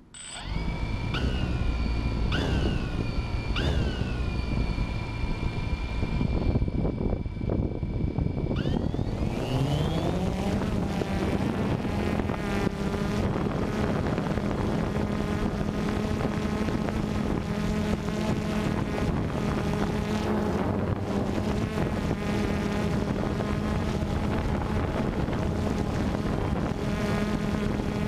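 DJI Phantom 2 quadcopter's electric motors and propellers. First it idles with a high whine that jumps up briefly three times. About nine seconds in, the whine rises as the motors spin up for take-off, then settles into a steady hum as it flies low.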